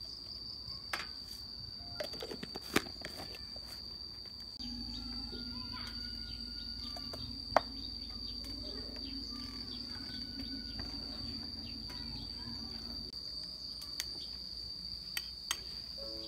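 Insects droning steadily at a high pitch, with a few sharp clinks of a metal spoon against a bowl as minced pork is seasoned and stirred. A low hum joins about a third of the way in and fades out near three quarters.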